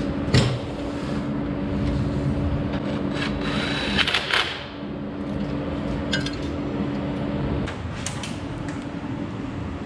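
Cordless drill running steadily at the tractor's battery, undoing the fastening of a cord. It gets briefly louder about four seconds in and stops about two seconds before the end.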